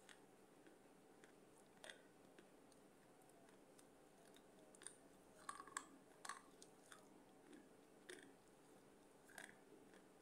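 Faint chewing of baked clay pot pieces, with scattered crisp crunches and clicks, most of them bunched around the middle.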